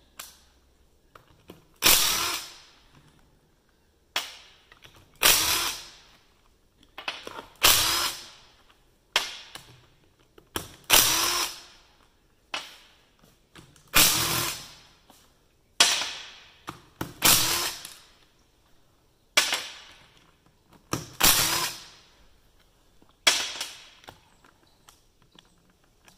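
Cordless power driver with a socket on an extension, run in about a dozen short trigger bursts, each under a second, as it backs bolts out of a cast-iron tractor PTO housing.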